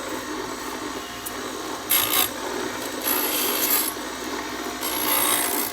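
Edge of a glass piece being ground against the spinning head of a home-built stained glass grinder, a gritty rasping that swells louder three times as the glass is pressed in.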